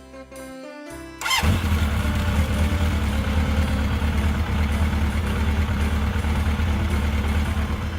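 A motor vehicle engine starts abruptly, about a second in, and runs steadily with a heavy low rumble, then cuts off near the end. It is most likely an engine sound effect laid over a toy-vehicle scene.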